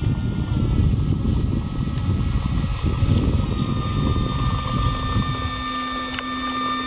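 Brushless electric motor and propeller of an FMS 1.5 m Cessna 182 model plane whining steadily at low taxiing throttle, the pitch dipping slightly just after the start. A low rumble runs underneath and thins out about five seconds in.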